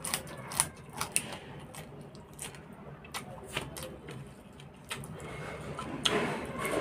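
A person chewing crunchy raw greens close to the microphone, with a run of sharp, separate crunches. Near the end the chewing gets louder and wetter as a fresh handful goes into the mouth.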